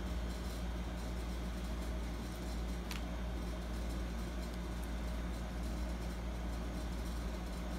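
Steady low mechanical hum, with a single faint click about three seconds in.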